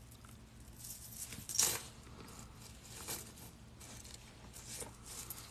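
Metal chainmail jump rings clinking and jingling between the fingers as they are worked into a jelly cube weave: scattered light clicks, with a louder jingle about one and a half seconds in.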